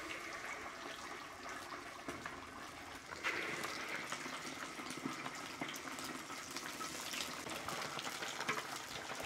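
Large pork meatballs deep-frying in hot oil, a steady sizzle with fine crackling that gets louder about three seconds in.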